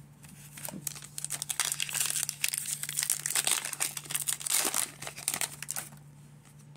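A 2022 Donruss baseball card pack's wrapper being torn open and crinkled by hand: a dense run of crackling and tearing that starts about half a second in and stops about six seconds in.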